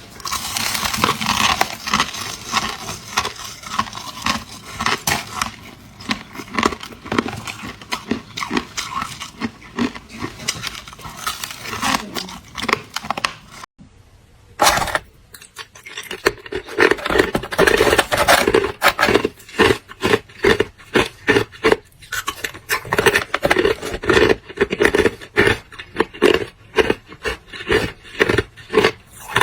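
Hard clear ice being bitten and crunched close to the microphone: dense crackling crunches, a brief pause about fourteen seconds in, then steady rhythmic chewing crunches.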